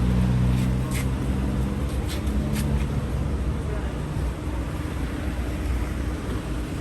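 Low, steady engine-like hum with a few light clicks.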